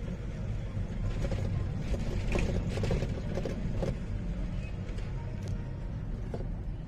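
Steady low rumble of a vehicle on the move, heard from inside the cab, with the cab creaking and rattling in a run of short clicks between about one and four seconds in.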